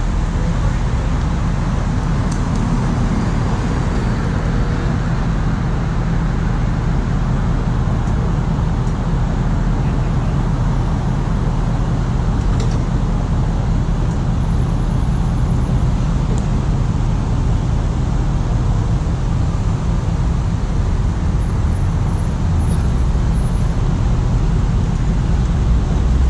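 Road traffic: cars driving past on a two-lane road, a steady low rumble that grows a little louder near the end as another car approaches.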